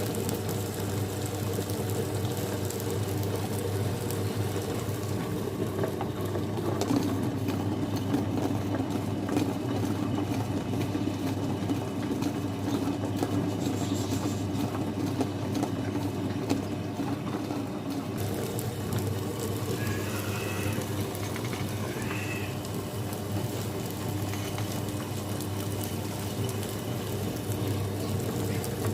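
Wonderchef Maxima wet grinder running steadily, its motor humming as it grinds soaked rice and lentils into idli and dosa batter.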